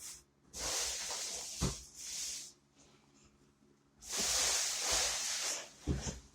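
Two bursts of hissing noise, each about two seconds long, with a soft thump or two.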